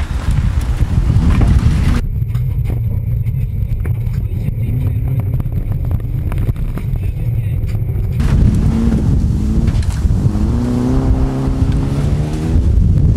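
Polonez 2000 Rally car's engine and road rumble heard from inside the cabin at speed. The sound is muffled from about two seconds in until about eight seconds in. After that the engine note climbs in steps as the car accelerates.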